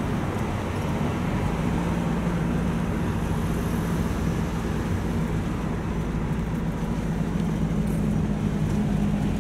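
Engine and road noise of a moving vehicle heard from inside its cabin: a steady low engine hum under an even rush of tyre and road noise.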